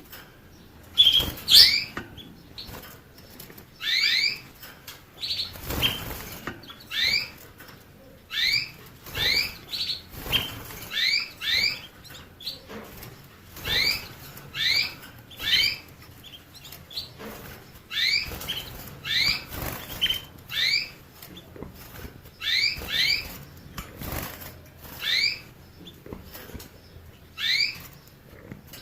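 Canary calling in repeated short, rising chirps, singly and in quick pairs or threes, with occasional soft flutters or rustles.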